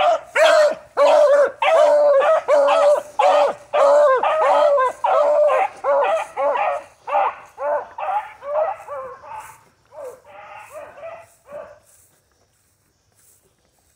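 Beagles baying on a scent trail, a quick repeated hound voice about two calls a second. The baying grows fainter and stops about twelve seconds in.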